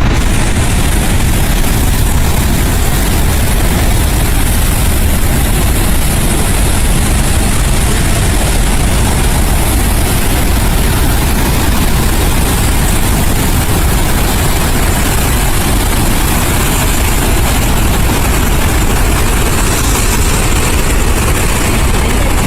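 Floodwater rushing from Summersville Dam's outlet during a high-volume flood release: a loud, steady, unbroken rush of water with a deep rumble underneath.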